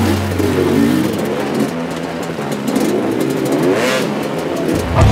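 Enduro dirt bike engines revving in bursts, pitch rising and falling repeatedly as the bikes are forced over rocks, over a steady low hum.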